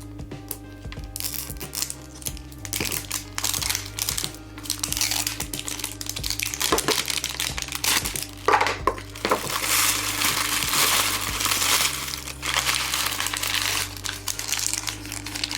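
Plastic wrappers crinkling and crackling in bursts as the packets inside an LOL Surprise pet ball are handled and torn open. Background music with a repeating bass line plays underneath.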